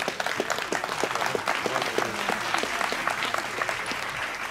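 Audience applauding: a dense patter of hand claps from a crowd, easing slightly near the end, with a few voices mixed in.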